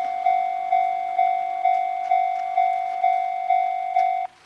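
Railway level-crossing warning bell ringing, about two strikes a second, each fading before the next. It cuts off suddenly near the end.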